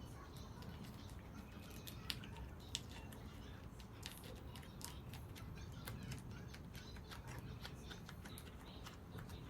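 Kitchen food-preparation sounds: faint, irregular small clicks and light taps of hands and utensils working, over a low steady room hum.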